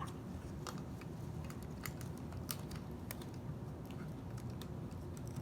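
Paper and sticky tape being handled while making a paper squishy: scattered small clicks and crinkles at uneven intervals.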